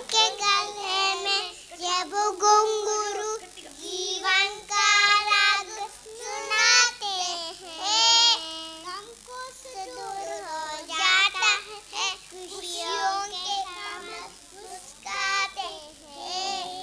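Children singing a song in Hindi, phrase after phrase with short breaths between.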